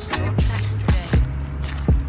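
Background music with a steady beat and heavy bass drum hits.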